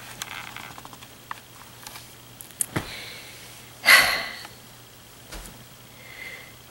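Pause in a woman's monologue: low room tone with a few small mouth clicks, and one short, sharp breath through the nose about four seconds in.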